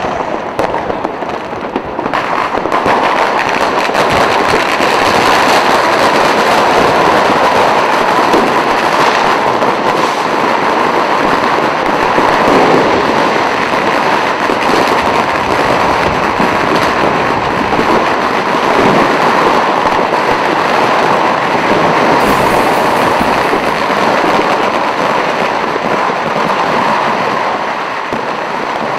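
A dense, continuous barrage of fireworks and firecrackers: crackles and bangs running into one another, louder from about three seconds in.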